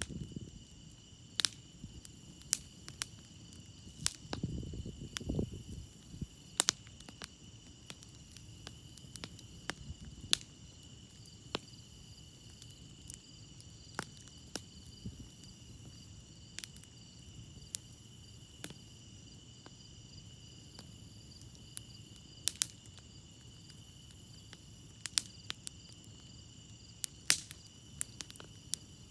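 Wood campfire crackling with sharp, irregular pops over the steady high trilling of crickets. A low rumble swells briefly about four seconds in.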